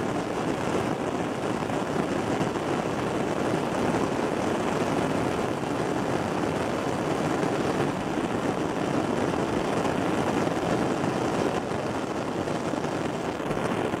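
Methane gas escaping through a hole in the lake ice and burning as a jet of blue flame, giving a steady rushing noise.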